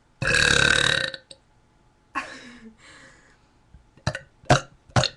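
A person burping: one long, loud burp lasting about a second, then a shorter, quieter burp, then three short, sharp sounds near the end.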